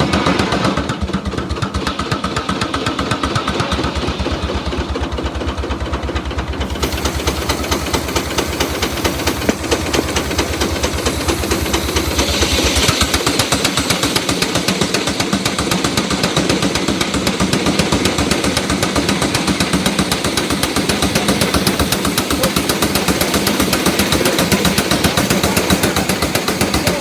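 An engine running steadily with a fast, even beat, with a brief rise of hiss about twelve seconds in.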